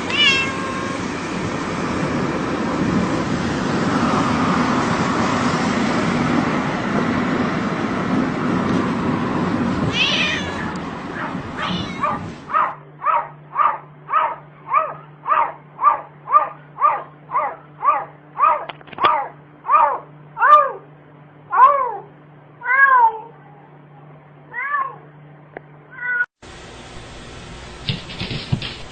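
A cat meowing, first a couple of calls over a noisy background, then a long run of short, evenly spaced meows, about two a second, each rising and then falling in pitch.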